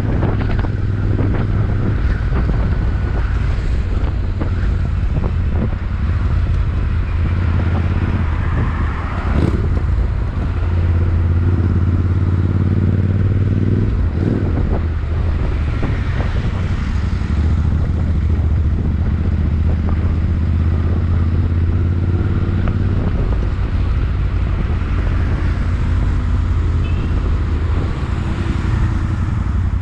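Royal Enfield Interceptor 650's parallel-twin engine and exhaust running loud under way, the engine note shifting with the throttle, with some wind on the microphone.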